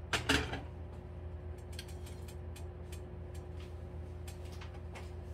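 Faint scattered ticks and crackles from cooking oil heating in a frying pan on an electric coil burner, over a steady low hum, with a brief noise right at the start.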